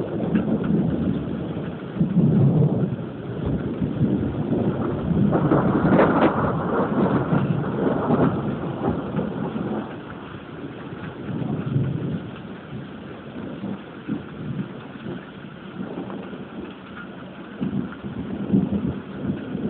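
Thunder rumbling in repeated swells over steady rain. The rumbling is heaviest through the first half, with a sharper crack about six seconds in, then it eases to quieter, scattered rumbles.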